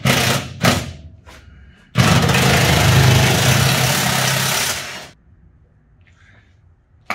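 After a couple of short clatters, a pneumatic wrench runs in one burst of about three seconds and stops, undoing a rear shock absorber mounting bolt.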